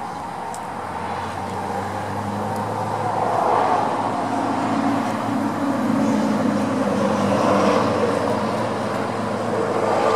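A motor vehicle running nearby: a steady engine hum with road noise that swells through the middle seconds and then eases slightly.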